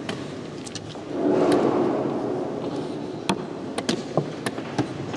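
Wooden chess pieces set down on a wooden board and chess clock buttons pressed in a fast blitz game: a string of sharp clicks, most of them in quick succession in the second half. About a second in, a broad swell of noise rises and fades.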